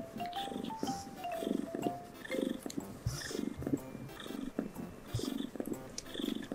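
Mother cat purring while she nurses her newborn kittens and is stroked, the purr swelling and fading with each breath, about once every 0.7 seconds. Light background music with a simple melody plays along, most clearly in the first two seconds.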